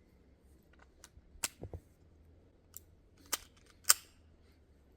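A handful of sharp metallic clicks and clacks from a semi-automatic pistol being loaded: the magazine seated and the slide racked, with the loudest clack near the end. The slide is freakishly hard to rack, put down to a fully loaded magazine.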